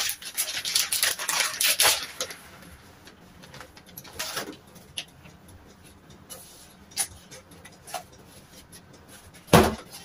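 Clear plastic packaging crinkling as it is handled for about two seconds, then light scattered handling clicks, and a single sharp knock near the end.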